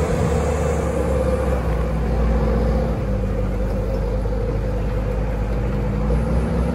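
Vehicle engine running with a steady low rumble, its note shifting about three seconds in.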